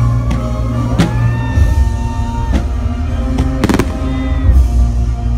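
Fireworks going off over loud music: several sharp bangs, with a quick run of close reports a little past the middle.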